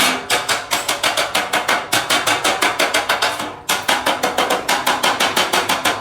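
Rapid hammering on stainless steel sheet metal, about six ringing blows a second. The blows break off briefly about two-thirds of the way through, then resume.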